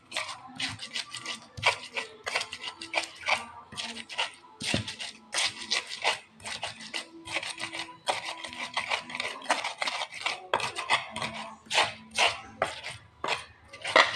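Stone pestle grinding a coarse spice paste of garlic, shallots, kencur and chili in a mortar (Indonesian ulekan and cobek). The strokes are quick and gritty and rasp several times a second without a break.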